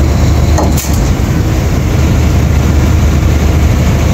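Heavy diesel engine running steadily at close range, a loud continuous low rumble.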